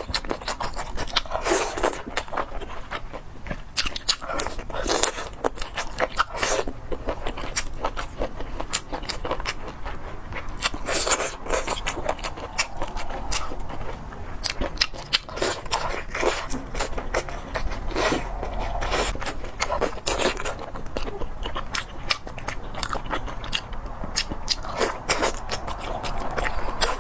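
Close-miked eating: chewing and biting, with many short clicks and scrapes throughout.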